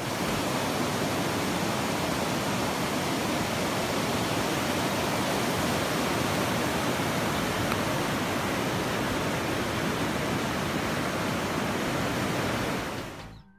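Whitewater of a mountain creek rushing down smooth granite slabs: a loud, steady roar of water that fades out just before the end.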